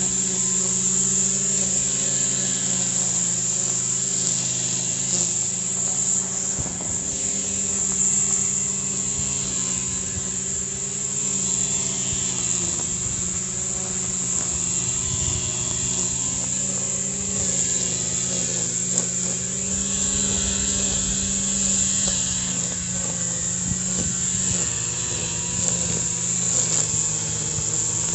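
Small petrol engine of lawn-care machinery running steadily under load while cutting, its pitch wavering a little, with a constant high hiss over it.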